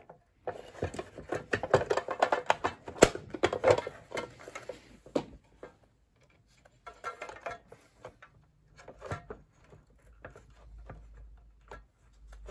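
Small metal and plastic parts of a toasted sandwich maker being handled as its mains wires are worked into place: a run of quick clicks and rattles for the first few seconds, one sharper click among them, then only a few scattered taps.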